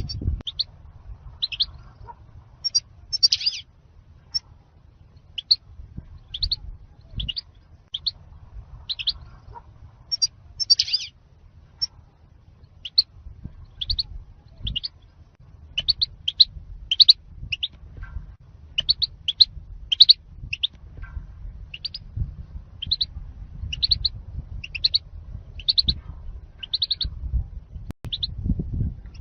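European goldfinch calling: short, high chirping notes repeated about once or twice a second, with a few denser clusters, over a low rumble.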